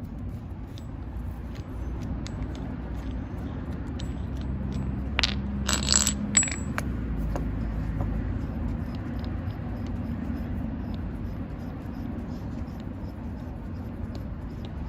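Metal parts of a manual hydraulic punch clinking against each other in a short cluster about five to six seconds in, with light scattered ticks of handling over a steady low hum.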